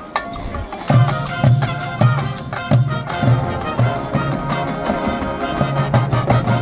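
Marching band playing, brass with drums. The full band comes in much louder about a second in, over a steady low beat.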